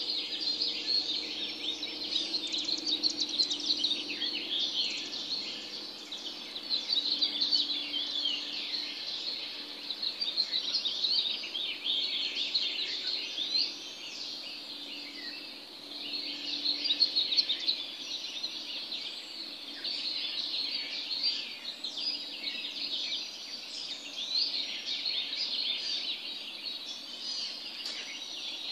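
Dawn chorus of many birds chirping and trilling at once in a dense, unbroken chatter. A faint steady low hum lies beneath and fades out near the end.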